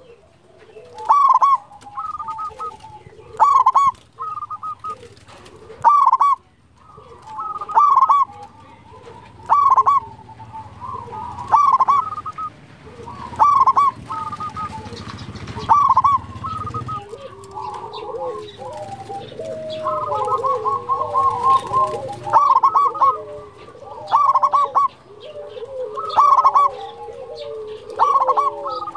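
Zebra dove (perkutut) cooing: loud phrases of short staccato coo notes repeated about every two seconds. From about two thirds of the way in, a second, lower-pitched wavering bird call runs beneath the coos.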